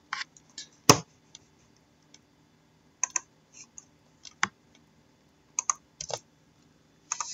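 Trading cards and packs being handled on a table: scattered, irregular light clicks and taps, the sharpest about a second in.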